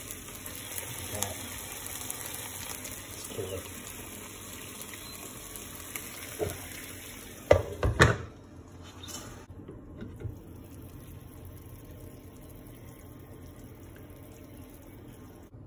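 Hot Italian chicken sausages sizzling in a frying pan, a steady hiss. About halfway through, a glass pan lid clatters down with a couple of knocks. After that the sizzle is quieter and duller.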